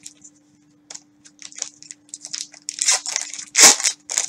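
Plastic trading-card pack wrappers crinkling and tearing as packs are ripped open by hand, in quick rustles that get louder and busier after about two and a half seconds, the loudest rip near the end.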